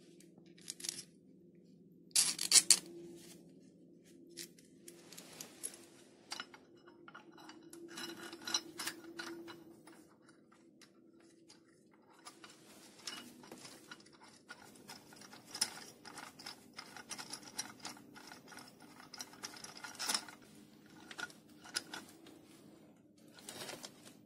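Small steel screws, washers and the aluminium mounting plate of a digital readout scale's reading head being handled and tightened by gloved hands: irregular metallic clicks, clinks and scrapes, with a sharp clatter about two seconds in that is the loudest thing. A steady low hum runs underneath.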